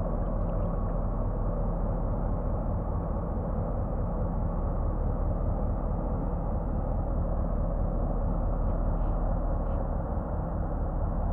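Steady low drone of an inland cargo barge's diesel engine as the ship passes on the river.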